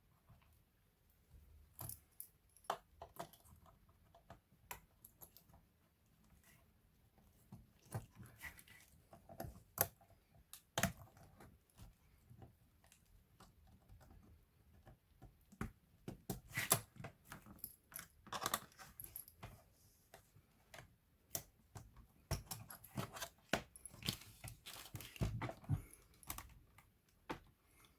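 Irregular small clicks, taps and light clatter from a laptop's plastic and metal parts being handled during disassembly.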